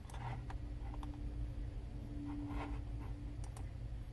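A few quiet computer-mouse clicks, with two close together near the end, over a low steady room hum.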